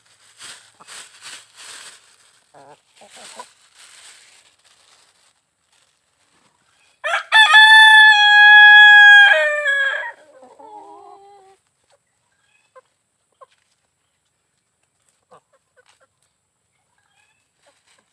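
A rooster crowing once, about seven seconds in: a couple of short stuttering notes, then one long held note that drops in pitch at the end. Before it, faint scratchy noises and clucking from chickens.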